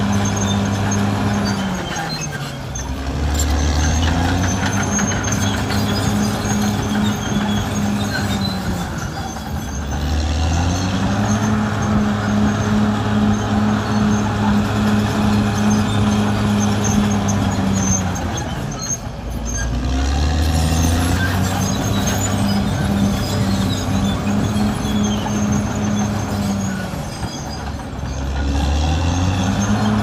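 Caterpillar D6R XL bulldozer's diesel engine running hard. Its pitch sags and climbs back four times, about every eight to nine seconds, over a faint metallic clatter.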